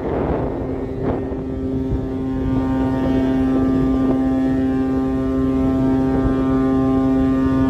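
Deep, steady pitched drone from the cruise ship Silver Spirit, held unbroken at one pitch. Water rushes and washes under it for the first second or so.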